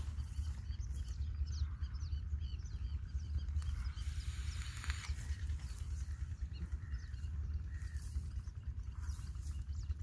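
Outdoor ambience of many small birds chirping over a steady low rumble, with a brief hiss about four to five seconds in.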